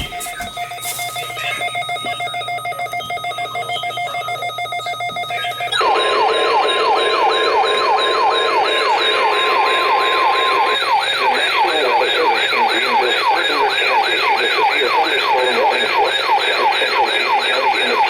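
Electronic emergency alert tones for a severe weather warning. A steady chord of electronic tones plays for about six seconds. Then a louder siren-like tone takes over, sweeping up in pitch about three to four times a second, with a steady single tone held alongside it for the first five seconds or so.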